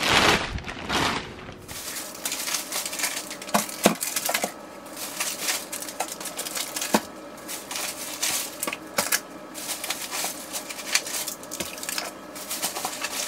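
A plastic bag liner crinkles as it is pulled out of a cardboard shipping box. After about a second and a half come scattered light clicks, knocks and clatter as packaged food is unpacked and handled, over a faint steady hum.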